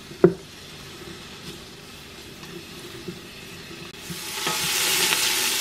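Sliced onions sizzling in hot oil in an Instant Pot's stainless inner pot, stirred with a wooden spoon, with one sharp knock near the start. The sizzle turns much louder and brighter about four seconds in.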